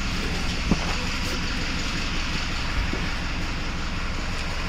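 A steady engine-like running noise, with one short knock about three-quarters of a second in.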